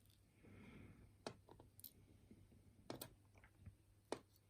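Faint, sparse clicks and taps of small metal parts as a pin-tumbler lock is taken apart, its pins and springs being worked out of the chambers. About six separate clicks.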